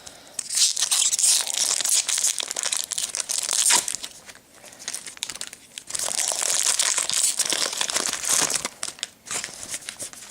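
A Magic: The Gathering booster pack's foil wrapper being torn open and crinkled, in two long stretches of crackling with sharp ticks, one near the start and one past the middle.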